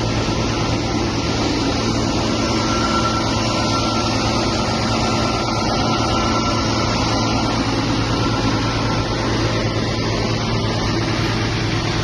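Suiden SSV 3003 industrial vacuum cleaner running steadily: a constant motor drone with a low hum underneath.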